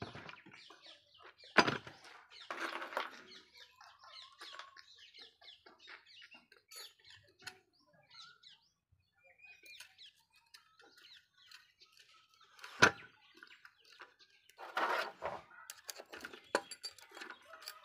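Hand work on the open crankcase of a Bajaj auto rickshaw two-stroke engine: steel gears and small parts clinking and scraping as a gear is fitted on its shaft. Two sharp metallic clicks stand out, one about a second and a half in and one about two-thirds of the way through. Birds call faintly in the background.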